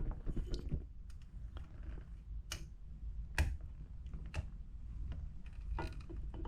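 Irregular clicks and taps of parts being fitted by hand into an old car's steering column, about one sharp click every second or so.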